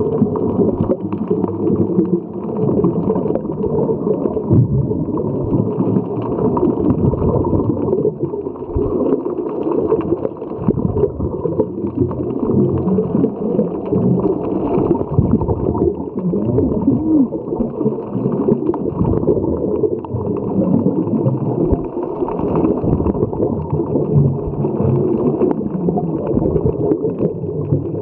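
Muffled underwater gurgling and rumble, heard through a camera's waterproof housing while diving, with a continuous, rough, fluctuating low sound.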